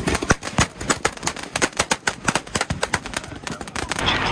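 Firecrackers going off in rapid, irregular volleys, many sharp cracks a second. Near the end a steady hissing rush sets in.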